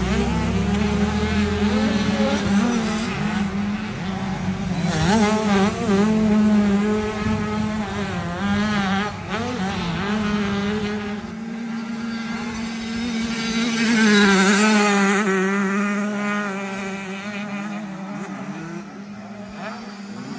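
Motocross bike engines racing round a dirt track, the revs rising and falling with throttle and gear changes. The sound grows louder as bikes pass closer, about five seconds in and again near fifteen seconds.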